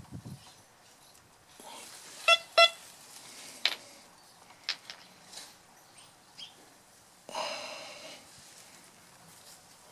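Two short beeps about a third of a second apart from a C.Scope CS1MX metal detector, followed by a few faint clicks. About seven seconds in there is a longer, rougher tone that fades out.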